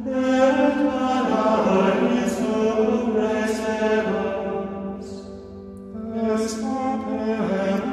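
Background music of voices chanting in long, held notes. It grows softer just past the middle, then swells again.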